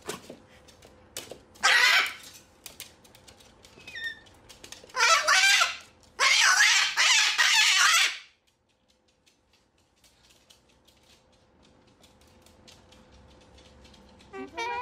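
Moluccan cockatoo screeching: three loud, harsh screams, the last lasting about two seconds, with a short faint chirp between the first two.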